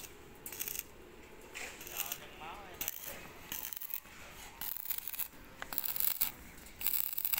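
Several short, high, scratchy scraping strokes on a steel box-section beam while it is measured and marked by hand with a tape measure and marker.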